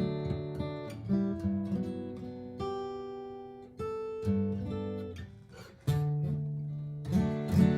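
Martin GPCPA4 acoustic guitar playing chords, each struck chord left to ring and fade before the next, with a run of quicker strums near the end.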